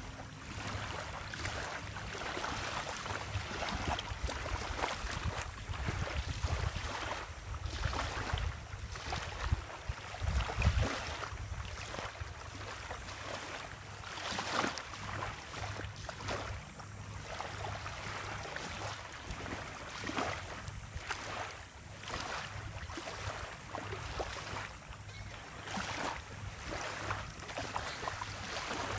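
Wind gusting across the microphone over small waves washing on the shore, with heavy wind rumble about six to eleven seconds in.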